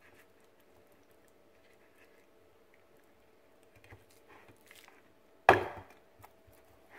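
Faint handling sounds of a hand rubbing seasoning into raw steaks on a plate, with one sharp, loud knock about five and a half seconds in.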